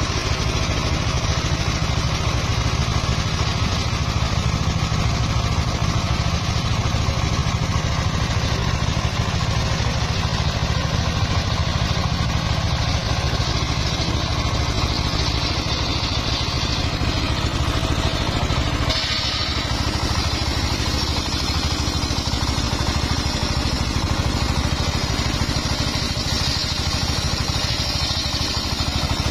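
Engine driving a homemade circular sawmill, running steadily. A higher hiss grows louder from about halfway through and changes slightly after a short dip near two-thirds through.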